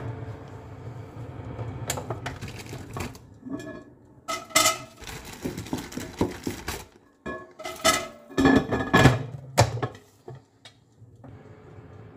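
Clinks, knocks and clatter of a halogen countertop oven's metal wire rack, glass bowl and lid being handled as pastries are loaded in. Several strikes ring briefly, and the loudest come about four and a half seconds in and again around eight to nine seconds in.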